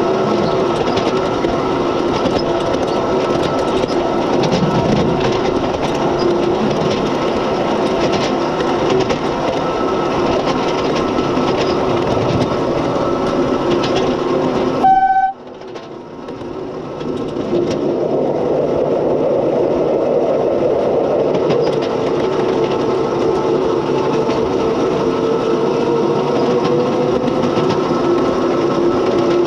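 A 7¼ inch gauge miniature mining locomotive running along the track: a steady drive whine with wheels clicking over the rail joints. About halfway through, a short horn toot is followed by a sudden drop in the running sound, which builds back over a couple of seconds. Later the whine sags in pitch and rises again.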